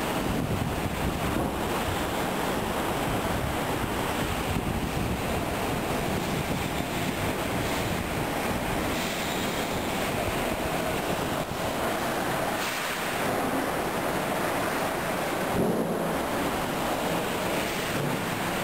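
Super typhoon wind and driving rain, a steady loud rush with gusts buffeting the microphone.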